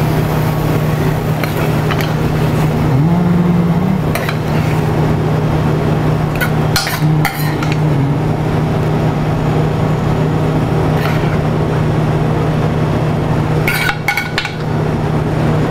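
A serving utensil clinks now and then against a metal pan and a clay tagine dish as chicken and vegetables are spooned out, with a small cluster of clinks about seven seconds in and again near the end. Under it runs a steady low machine hum.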